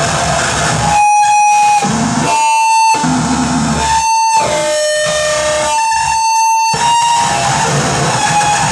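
Live noise music: a dense amplified noise bed under a steady, high feedback whine whose pitch shifts slightly. The noise cuts out abruptly four times, leaving the whine exposed, and a second, lower tone sounds briefly in the middle.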